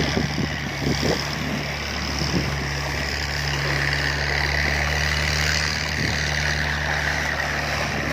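An engine running steadily under a continuous rushing of mud slurry pouring from the end of a dredge discharge pipe.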